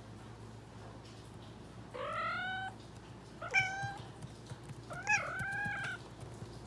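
Calico cat meowing three times: a rising meow about two seconds in, a short one a second and a half later, and a longer one of about a second near the end.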